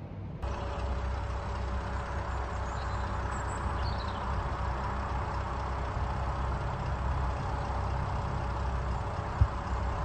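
An engine running steadily at idle: a low rumble with a steady whine over it. A faint short chirp about four seconds in.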